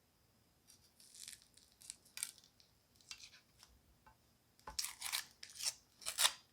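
Dry, papery onion skin crackling and tearing as the onion is cut and handled, in short bursts, with three louder ones in the last second and a half.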